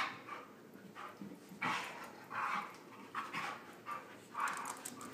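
Dogs panting hard in short, breathy huffs, about one a second, while play-wrestling.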